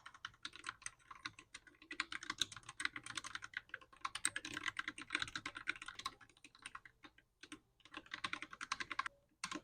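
Fast typing on a mechanical keyboard freshly fitted with milky yellow key switches, a dense run of key clicks with a short pause about two-thirds of the way through.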